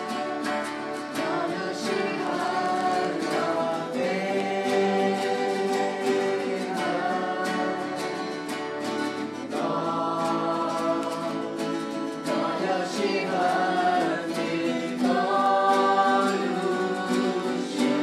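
A small group of voices singing a worship song in Hmong together, accompanied by strummed acoustic guitars. The sung notes are held and change every second or two over a steady strumming rhythm.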